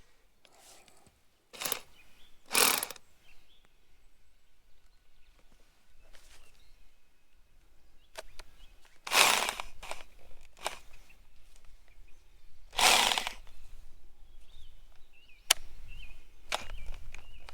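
Scattered handling noises from working on sewer pipe and fittings: two short knocks, then two longer scraping sounds and a sharp click, with quiet between them.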